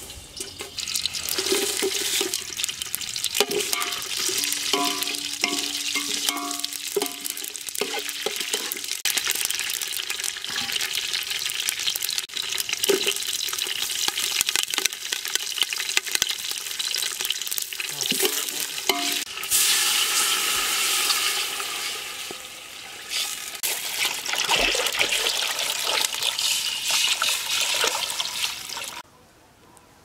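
Whole spices and green chillies sizzling as they fry in hot oil in a large metal pot over a wood fire. There are metallic clinks of stirring against the pot about four to nine seconds in, and the sizzle cuts off abruptly near the end.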